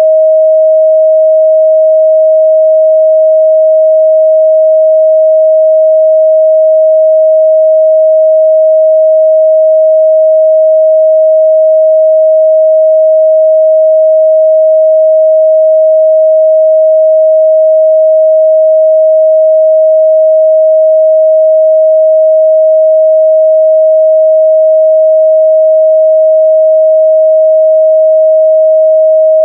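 A steady, loud 631 Hz pure sine-wave test tone, held at one pitch without a break.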